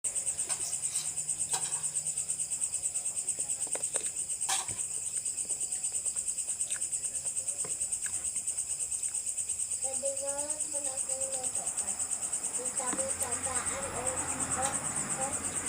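Insect chorus, crickets or the like, with a steady high-pitched pulsing trill throughout. A few sharp clicks come in the first few seconds, and faint voices come in about two-thirds of the way through.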